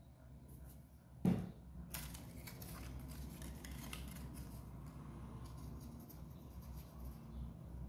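A single knock just over a second in, then stiff folded paper rustling and crackling with many small ticks as a paper model and its chain of paper links are handled and worked with a thin metal tool.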